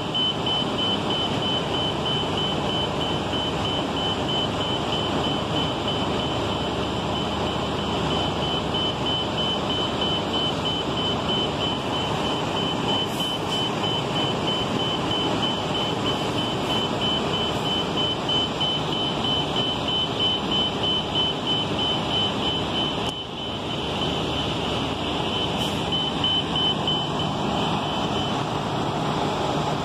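Idling city transit bus, a steady engine rumble, with a fast high-pitched beep repeating over it that stops near the end.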